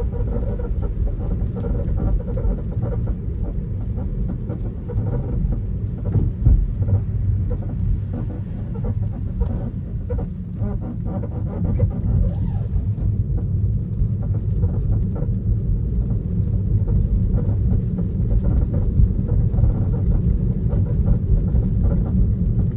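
Tesla Model 3 driving straight, with steady low road and tyre rumble and faint intermittent creaks from the car's body or suspension.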